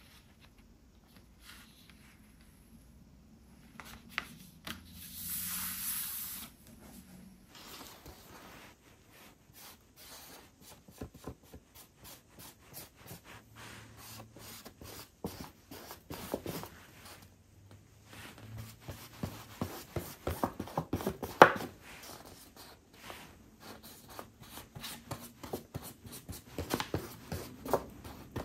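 Close-up sounds of a leather book being worked by hand: a short rubbing hiss about five seconds in, then a long, irregular run of small clicks, taps and scrapes of leather and tools, the sharpest a little past the middle.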